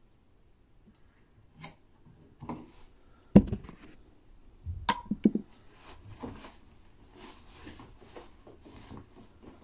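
Hand tools and hardware being handled and set down on a job: a sharp knock about three and a half seconds in and a quick run of metallic clicks near five seconds, then light rustling and ticking.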